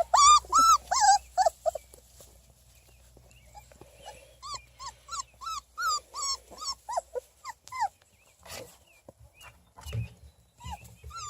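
Three-and-a-half-week-old beagle puppies crying in short, high, repeated whines, about three or four a second. A burst comes at the start and another run follows about four to eight seconds in. A few knocks and a dull thump come near the end.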